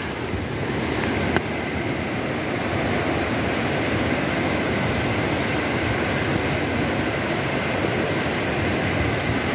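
River water rushing steadily, an even noise with a faint, steady high tone over it. A single short click about a second and a half in.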